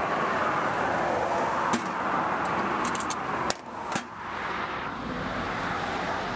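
A few sharp metallic clicks from tongs and the hinged lid of a stainless steel hot dog cart's steam pan, over a steady hiss of outdoor background noise that drops out briefly about three and a half seconds in.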